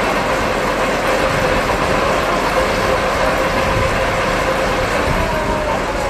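A tractor and a self-unloading forage wagon run steadily while the wagon discharges chopped grass onto a silage heap. The engine and the unloading gear make a continuous mechanical clatter with a faint steady hum.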